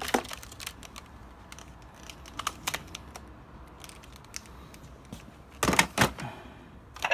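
Scattered light clicks and knocks of objects being handled and moved about, with a cluster of louder knocks about five and a half seconds in.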